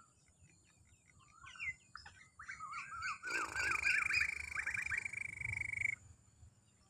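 Birds calling: a run of quick up-and-down whistled notes, then a harsh, grating buzzy call held about three seconds that stops abruptly.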